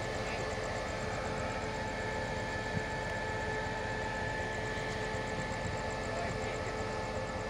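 SRT QSY-class diesel-electric locomotive idling while standing at the platform: a steady engine drone with a few steady whining tones on top.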